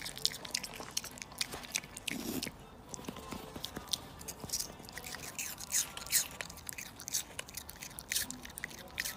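Close-up chewing and crunching: something crisp being bitten and chewed, in many quick, irregular crunches.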